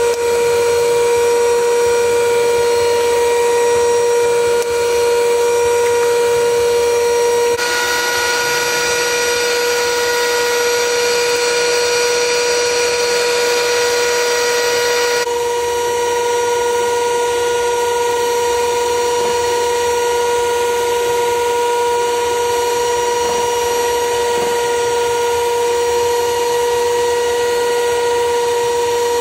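A steady droning tone with a higher overtone runs unbroken throughout. From about a quarter of the way in until about halfway, an electric hand mixer whirs over it and then stops abruptly.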